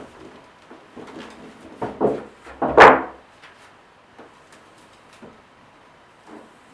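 Marker writing on a whiteboard, with two loud short scraping strokes about two and three seconds in, then only faint light taps.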